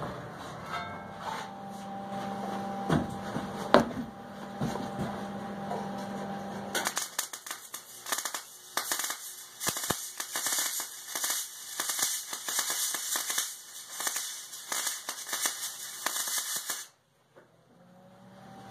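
A few metal clunks over a steady hum, then, about seven seconds in, the arc of an electric welder crackles steadily for about ten seconds as a steel plate is welded onto the forge shell, and cuts off suddenly.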